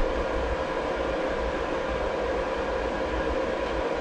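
A steady mechanical hum with a low rumble and a faint constant whine, unbroken and without knocks.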